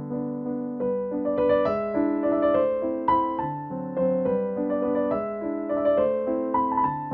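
Piano music: a slow melody of single struck notes that ring and fade over lower held chords.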